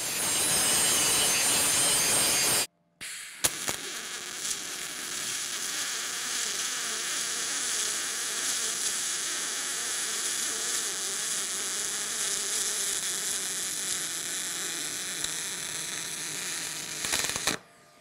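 Aluminum MIG welding arc from an HTP Pro Pulse 220 MTS welder: a steady hiss. A louder stretch of about three seconds cuts off abruptly, then after a brief gap the arc runs steadily until near the end.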